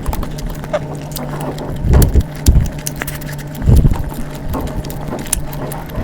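Close-miked eating sounds: chewing with many small wet mouth clicks and a few heavier low thumps, over a steady low hum.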